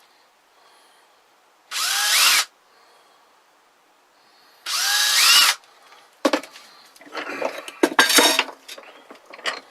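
Power drill run in two short bursts of about a second each, its pitch rising as it spins up, boring pilot holes into a piece of wood so it won't split. Then a run of irregular knocks and clatter.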